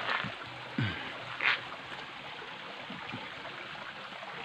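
Small rocky forest stream running and trickling steadily over stones in shallow water. A few brief louder rustles or knocks come in the first second and a half.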